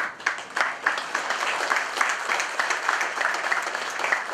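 Audience applauding: a dense run of hand claps that starts suddenly.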